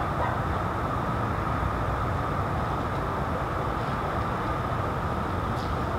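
Steady outdoor background rumble with a constant hum, with no distinct events.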